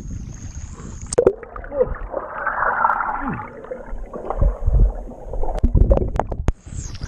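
Water heard through a submerged camera microphone: muffled gurgling and bubbling, with low thuds and splashes from a person's arms and legs moving in the lake water, and a few sharp clicks near the end.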